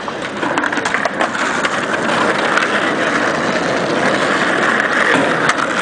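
Skateboard wheels rolling over pavement, a steady rumble that grows louder over the first couple of seconds, with a few sharp board clacks.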